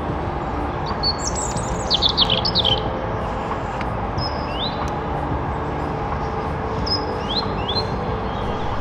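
Small songbirds singing: a rapid, high, falling twittering phrase about a second in, then a few short thin rising notes, over a steady low background rumble.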